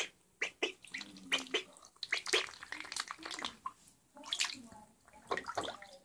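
Magpie ducklings splashing and dabbling their bills in shallow bathwater: quick, irregular splashes and slurps, with a few low voice-like sounds between them.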